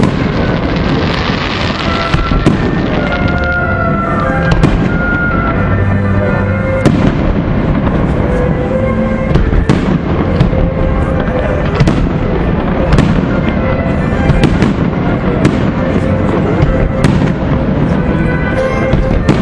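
Aerial firework shells bursting in a dense display, with sharp bangs about every second or so over a continuous crackle and rumble. Music plays alongside, with held notes.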